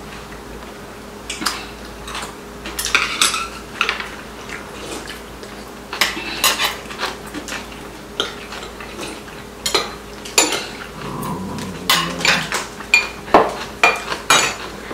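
Metal chopsticks and spoons clicking and scraping against ceramic bowls and plates while people eat, in irregular clicks that come more often in the last few seconds.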